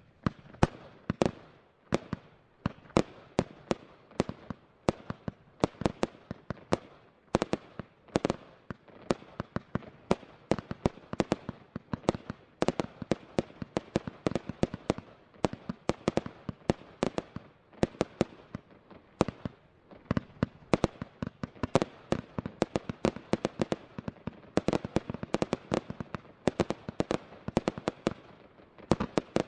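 Multi-shot firework cake (Show of Fireworks JW4002 battery) firing shot after shot: a steady run of sharp bangs, about two to three a second, as tubes launch and small shells burst.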